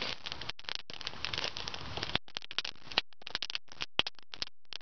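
Split-wood fire crackling, with a rapid, irregular run of sharp snaps and pops.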